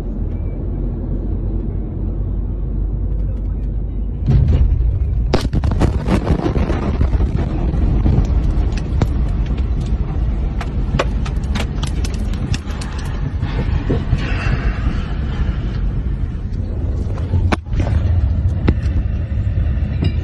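Car interior with steady road noise. About four seconds in, the blast wave of the ammonium nitrate explosion strikes with a sudden loud boom. A continuous rumbling din follows, full of sharp cracks and clatters.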